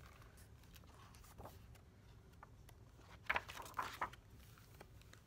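A picture book's page being turned: a few faint paper ticks, then a brief rustling swish a little over three seconds in.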